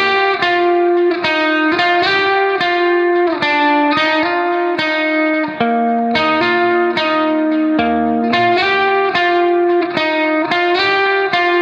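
Background music: a plucked guitar melody, single notes picked in a quick, even run of about three a second.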